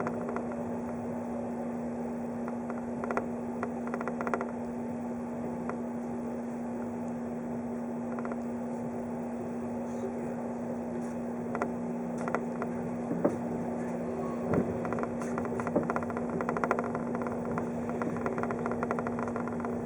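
Running noise inside a 583 series electric train car: a steady hum over the rumble of the train in motion, with scattered clicks and knocks that come more often from about halfway through.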